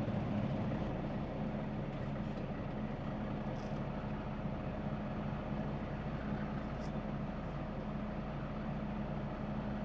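Kenworth T680 semi truck's diesel engine idling with a steady low hum, heard from inside the cab.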